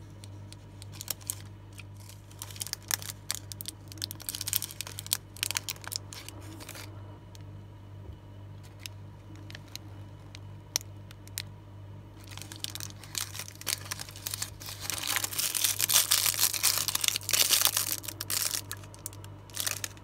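Chocolate wrappers of foil and red metallic film crinkling and rustling as they are handled and unwrapped. Scattered crinkles come in the first several seconds, and the loudest, densest crinkling comes in the last few seconds.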